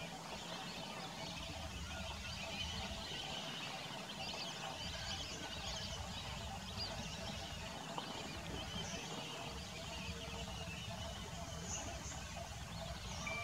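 Outdoor ambience: a continuous chatter of many small birds chirping, over a steady low rumble.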